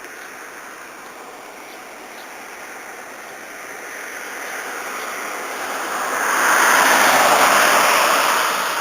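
A rushing noise that swells over several seconds, is loudest near the end, then starts to ease off.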